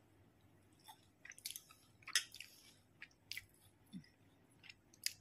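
Someone faintly chewing a mouthful of shahi tukra, soft fried bread soaked in sweetened milk, with irregular wet mouth clicks and smacks.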